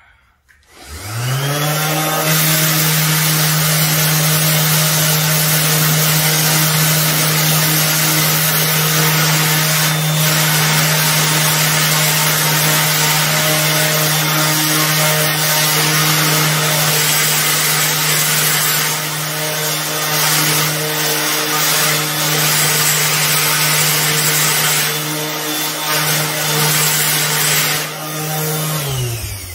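Electric orbital polisher with a foam buffing pad, buffing a bare metal grille. The motor spins up about a second in, runs at a steady hum with the pad rubbing on the metal, and winds down near the end.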